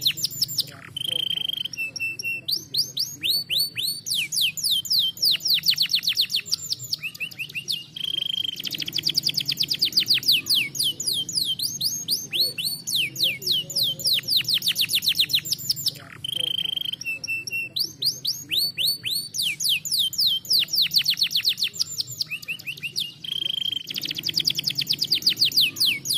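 Domestic canary singing: long, fast trills of repeated downward-sweeping notes, broken a few times by a short held whistle.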